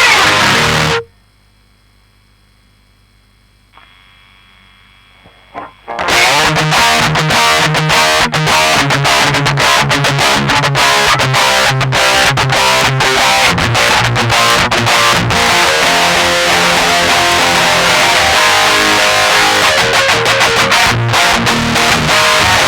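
Electric guitar through a distortion pedal, with an EQ pedal ahead of it boosting the mids and treble and leaving the bass flat. Distorted chords stop about a second in, leaving a few seconds of faint amp hum and small clicks. Fast, rhythmic strumming then starts again and runs on.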